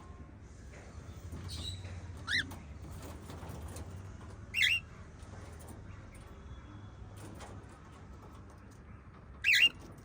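Small pet parrots chirping: three short, loud, sharp calls, about two seconds in, near the middle and near the end, with faint scattered chirps and ticks between them.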